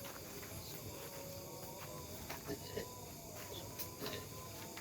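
Night insects, crickets trilling steadily and faintly, with a few soft clicks and knocks scattered through.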